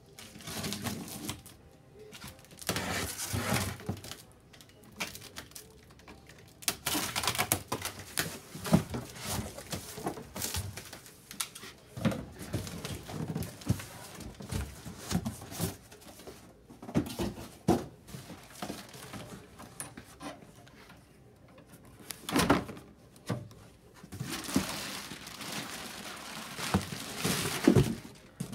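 A large cardboard box being opened by hand: packing tape pulled off, then the flaps and inner cardboard scraping, rustling and folding back in irregular spells. A few sharp thumps of cardboard stand out, the loudest about two-thirds of the way through and near the end.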